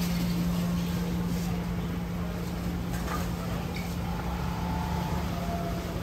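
Food-stall kitchen ambience: a steady low hum over a constant rush of background noise, with faint voices now and then.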